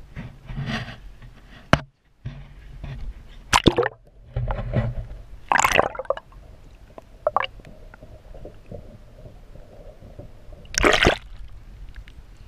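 Water splashing and sloshing against a camera dipped in and out of the sea beside a boat hull, in irregular bursts, with a quieter steady stretch while the camera is under water. The loudest splash comes near the end.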